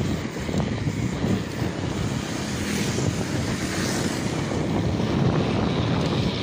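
Wind buffeting the microphone of a handlebar-mounted camera on a bicycle riding at about 35 km/h, a steady rushing noise heavy in the low end.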